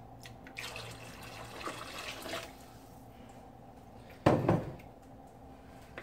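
Water poured from a plastic jug into a pot of pasta on the stove, a soft splashing pour of about two seconds, followed by a single short, loud knock about four seconds in.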